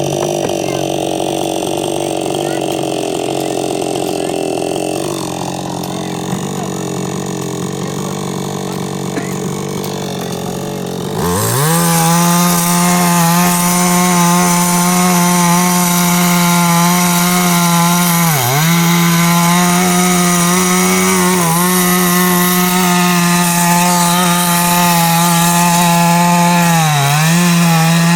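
Two-stroke chainsaw running at low speed, then opened to full throttle about 11 seconds in and held at a high, steady pitch while cutting wood. The engine note sags briefly about three times as the chain bites under load.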